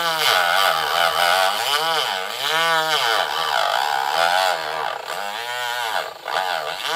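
Dremel rotary tool cutting into the ATV's plastic body panel, its high whine dipping and rising in pitch again and again as it is worked into the plastic.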